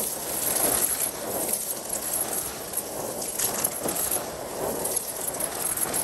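Numatic Hetty vacuum cleaner running steadily while sucking up dry debris, which crackles, crunches and rattles irregularly as it is drawn in.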